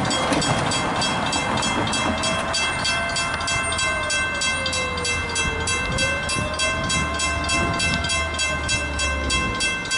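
Railroad grade-crossing warning bell starting suddenly and ringing steadily at about three strikes a second as the crossing's signals activate. Under it a tone slowly rises and falls twice, and a low rumble builds in the second half.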